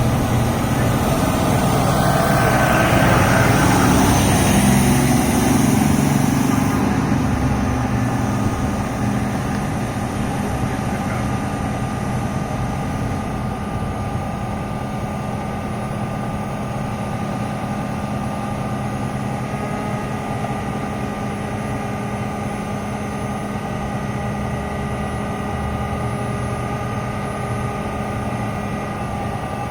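Fire truck's diesel engine running at a steady idle. It is louder for the first several seconds, with a high whine rising in pitch, then settles into an even drone.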